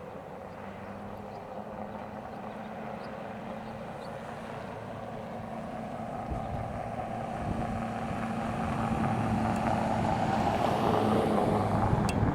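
A passing vehicle: a low rumbling noise that grows louder through the second half and peaks near the end, over a faint steady hum.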